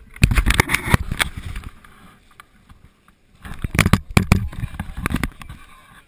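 Two bursts of rumbling and knocking on the microphone of a handheld pole-mounted camera as it is handled, the first just after the start and the second past the middle, each about a second and a half long.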